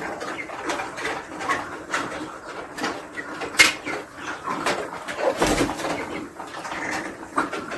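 Poultry birds calling in irregular short notes, with a sharp click about three and a half seconds in.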